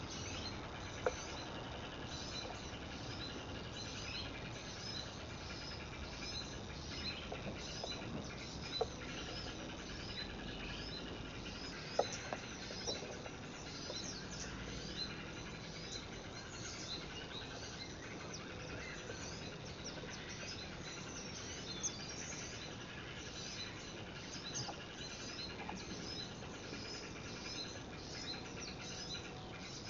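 Small birds chirping rapidly and continuously, with a few sharp clicks.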